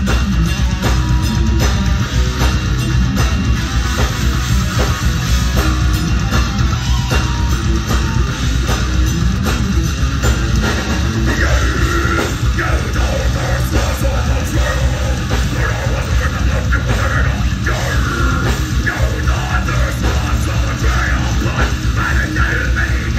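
Live heavy rock band playing: electric guitars, bass guitar and drums going steadily and loud, with a singer's voice over them from about halfway through.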